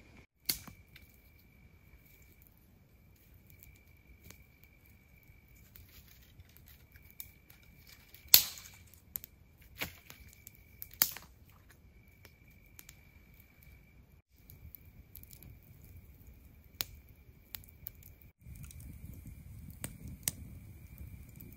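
Wood campfire crackling with scattered sharp pops and snaps, the loudest about eight and eleven seconds in, over a steady high-pitched insect trill that comes and goes in pulses. A low rushing noise comes up in the last few seconds.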